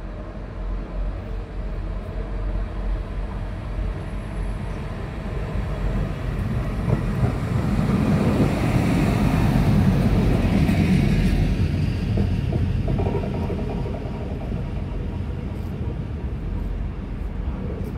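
NS 20 'Kameel' diesel-electric railcar approaching and passing close by on the track. The rumble of its engine and wheels grows louder to a peak about halfway through, then fades as it moves away.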